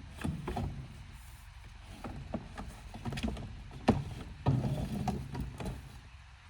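Fence pieces being handled and set down: a run of knocks and clatters, with one sharp knock about four seconds in and a short burst of clattering right after it.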